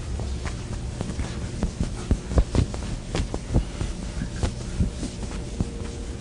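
Writing on a lecture board: irregular taps and scratchy clicks of the chalk or marker, denser and louder in the middle, over a steady low room hum.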